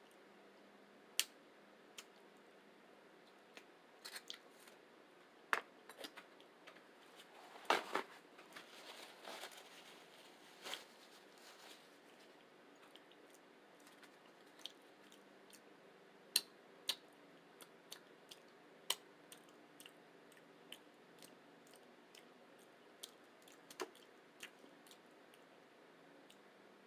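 Close, faint mouth sounds of someone eating a rice and beans burrito: scattered wet smacks and clicks of chewing, with a busier stretch of biting and chewing about eight seconds in.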